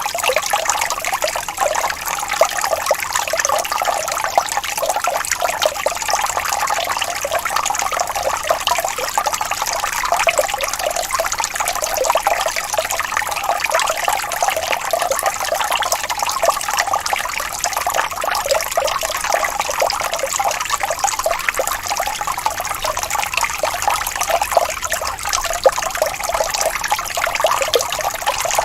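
Gently rippling stream of running water, flowing and trickling steadily and evenly, without a deep rumble.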